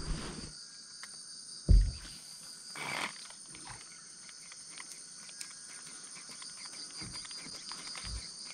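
Insect chorus: several steady high-pitched tones holding unbroken. A single low thump comes about two seconds in, with a few fainter knocks later.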